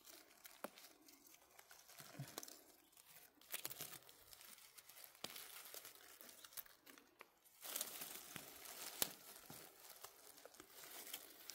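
Faint rustling and crackling of forest-floor moss, leaves and twigs, coming and going irregularly with scattered sharp clicks.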